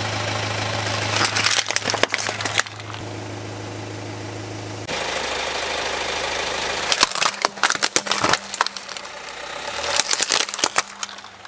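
Car engine idling steadily while a tyre rolls over hard plastic toy robots and crushes them. Bursts of cracking and snapping plastic come about a second in, then again from about seven seconds and about ten seconds in.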